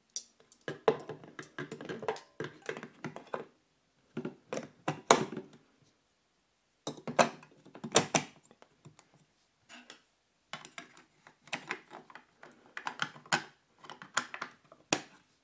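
D-cell batteries being pushed into a watch winder's battery compartment: bursts of clicks, knocks and rattles with short pauses. Near the end the compartment cover is pressed back into place with a few sharper clicks.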